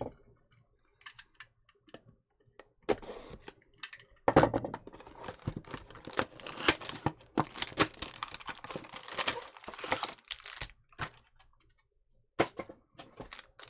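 Hands tearing open a cardboard trading-card hanger box and handling the plastic-wrapped stack of cards inside: crackling, rustling and clicking, sparse at first, thick from about three seconds in with a sharp loud crackle just after four seconds, thinning out again near the end.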